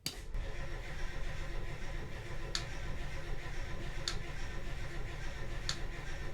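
The trawler's port diesel engine running steadily with a low, even rumble, with three sharp clicks about a second and a half apart.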